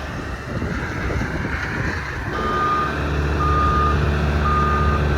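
A heavy machine's backup alarm beeping about once a second, each beep about half a second long, over the machine's steady engine. The beeping and engine start a little over two seconds in, after a rough, wind-like rush.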